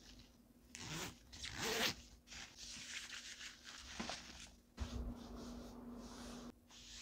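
Zipper on a quilted nylon puffer tote bag being pulled closed in a few scratchy strokes. Then a soft thump and the rustle of the padded fabric as the bag is handled and picked up.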